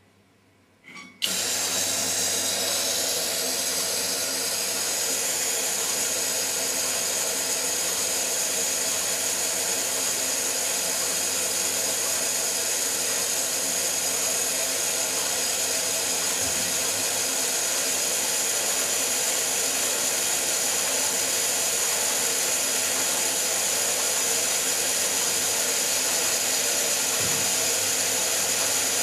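Eudora Goldkind EU 340 small washing machine starting its wash about a second in, with a click, then running steadily: an even motor hum with a loud hiss of churning water.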